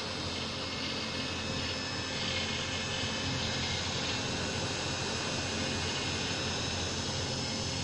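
Electric motor of a homemade wood lathe running steadily, turning the spindle and faceplate: an even hum with a whirring hiss.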